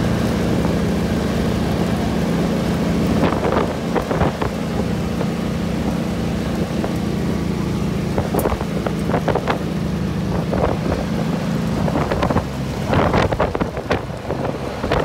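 Side-by-side utility vehicle driving on a dirt road, its engine running with a steady hum, and wind buffeting the microphone. Scattered rattles and knocks come from bumps, more of them in the last few seconds.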